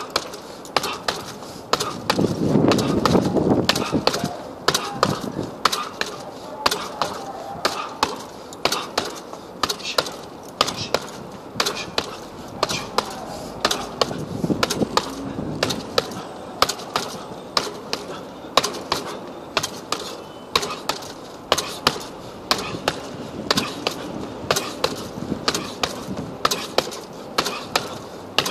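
Boxing gloves striking a hanging heavy punching bag over and over, sharp thuds at about two to three a second.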